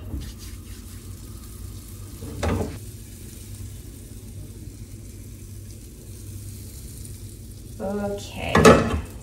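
Butter melting and sizzling in a non-stick frying pan over a gas burner as the pan is swirled. A short louder sound comes about two and a half seconds in, and another near the end.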